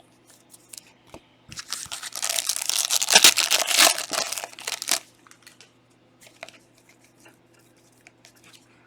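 A foil trading-card pack wrapper torn open with a long crinkly rip lasting a few seconds, followed by a few faint clicks of cards being handled.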